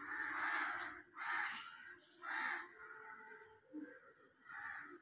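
Crows cawing: about four harsh caws, roughly a second apart, with the last one a little weaker.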